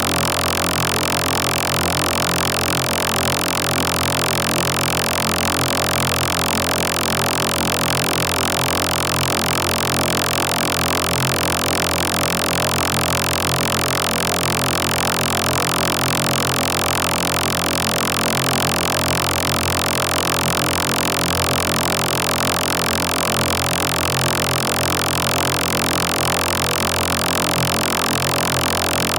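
Steady, dense electronic drone of many sustained tones layered together, unchanging in level, typical of a processed synthetic sound effect.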